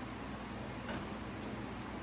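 Butter and lemon sauce simmering in a skillet over low heat, a steady soft hiss, with one faint tick about a second in.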